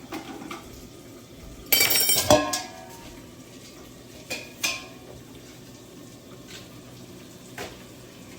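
Metal cookware clattering in a kitchen: one loud ringing clank of a pot or pan about two seconds in, then a few lighter knocks and clinks.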